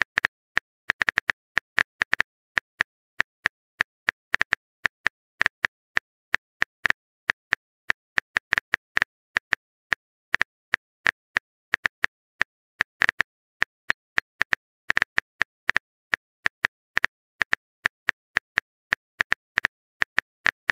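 Smartphone keyboard typing sound effect: a long run of quick, irregular taps, a few a second, each a short crisp click, as a text message is typed out.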